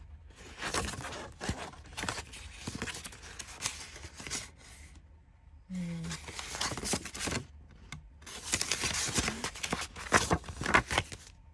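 Paper rustling and crinkling as a thin card and a paper envelope and folder are handled, slid out and leafed through. It comes in several crackly bursts with brief pauses between them.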